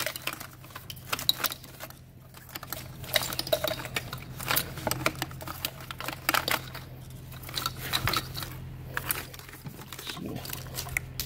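Engine wiring harness in corrugated plastic loom being pulled out by hand: irregular clicks, rattles and rubbing of the loom and its connectors against engine parts, over a steady low hum.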